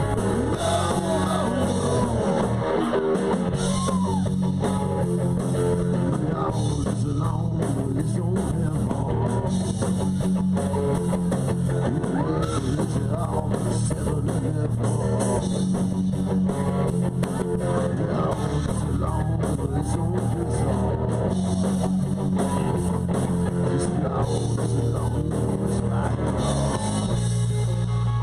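Live rock band playing: guitar over bass and a drum kit, loud and continuous.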